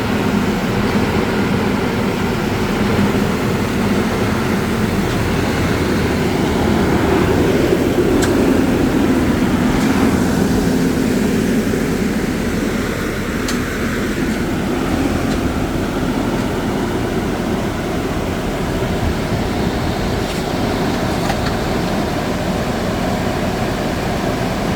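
Hydraulic rock drill rig running steadily with a loud mechanical drone, swelling slightly partway through.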